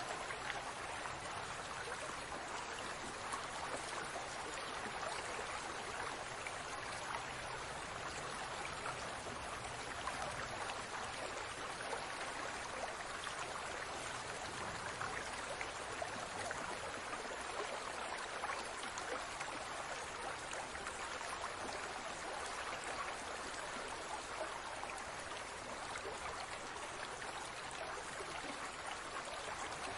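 Aquarium water bubbling and trickling steadily, a dense, even wash of tiny bubble pops and splashes.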